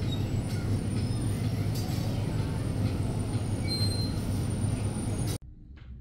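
Steady rumbling vehicle noise with a faint high-pitched squeal running through it. It cuts off abruptly about five seconds in, leaving a much quieter background with a few light ticks.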